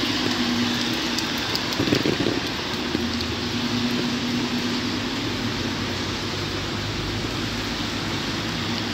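Heavy rain falling on a wet city street, a steady hiss, with the low hum of car engines in traffic on the wet road underneath it. There is a brief louder swell about two seconds in.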